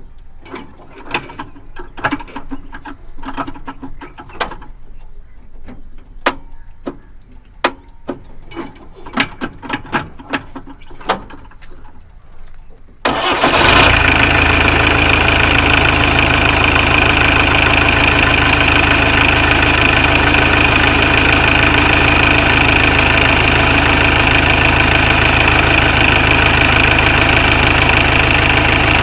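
Bus engine being started after failed attempts: a run of irregular clicks and knocks, then about thirteen seconds in the engine catches and runs steadily and loudly.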